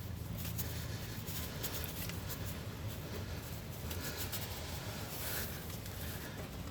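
Faint scratching and light ticks of hands working at the oxygen sensor's wiring connector under the hood, over a low steady hum.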